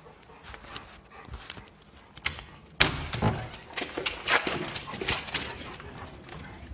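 A few light clicks and a sharp latch click, then about three seconds in a glass-panelled front door is pulled open with a loud rattle and thunk, followed by a couple of seconds of scuffling and knocks as dogs rush out through it.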